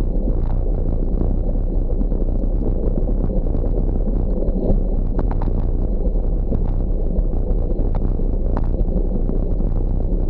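Steady rumble of bicycle tyres rolling fast on a gravel road mixed with wind buffeting the microphone, with a few sharp ticks about halfway through and again later.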